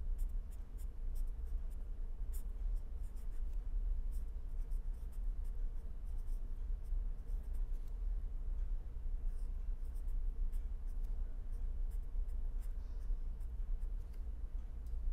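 Pen writing on paper: light, scattered scratches and ticks of the pen strokes, over a steady low hum.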